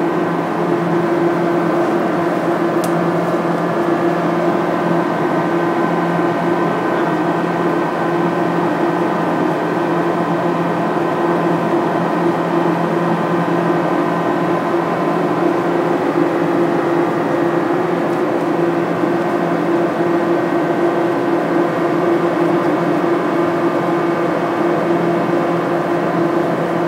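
Steady, unchanging machine hum at one low pitch with overtones, like a motor or fan running.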